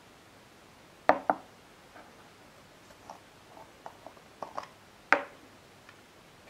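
Plastic jar of hydrogel eye patches being handled and opened: two sharp clicks about a second in, a few light clicks and taps, then a sharp knock about five seconds in as the lid is set down on the table.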